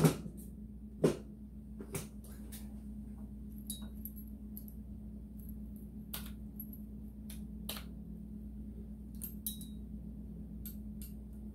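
Scattered light clicks and clinks of small metal parts and tools being handled during wiring work, with two louder knocks near the start and about a second in.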